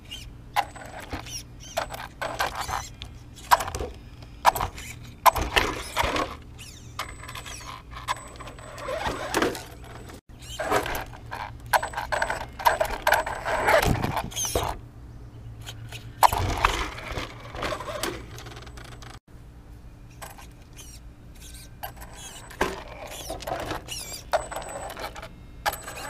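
Traxxas Stampede 4x4 VXL radio-controlled truck crawling over rocks: its tyres scrabble and its chassis clatters and scrapes on the stone in irregular bursts, the loudest a little before the middle as a wheel rolls past close by. The sound breaks off abruptly twice where clips are joined.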